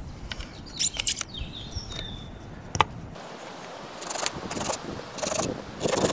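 A few sharp clicks, then from about four seconds in a folding pruning saw cutting a thin birch branch in short back-and-forth strokes, about two a second.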